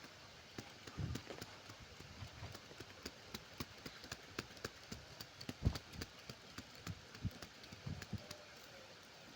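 Faint, irregular light taps and clicks, several a second, over a low steady hiss, with one stronger knock about halfway through.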